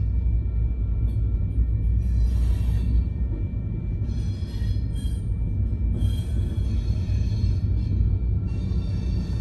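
Freight train of covered hopper cars rolling past a grade crossing: a steady low rumble of wheels on rail, with bursts of high-pitched wheel squeal coming and going every second or two.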